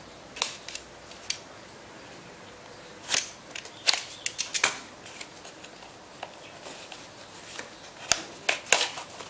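Snap-off utility knife blade slicing through the seal of a cardboard headphone box in short, sharp scraping strokes, then cardboard scraping and rustling as the box is pulled open. A few strokes come in the first second and a half, a quick cluster from about three to five seconds in, and more near the end.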